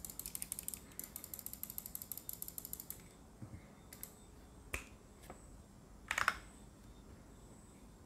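Computer mouse: a fast, even ratcheting run of small clicks for about three seconds, typical of the scroll wheel being spun, then a few separate clicks, the loudest a short cluster about six seconds in.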